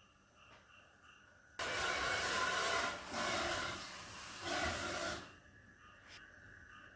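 A loud hissing rush that starts suddenly about one and a half seconds in, swells and dips, and stops after about four seconds.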